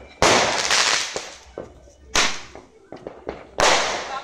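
Fireworks going off close by: three loud bangs about a second and a half apart, each fading out over about a second.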